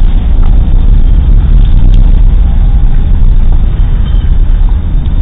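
Thunderstorm noise: a loud, steady, distorted low rumble that holds without pause.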